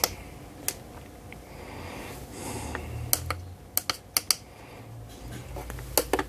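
A series of sharp, scattered clicks, about nine in all, from test gear being handled while the multimeter is set up for the next current range.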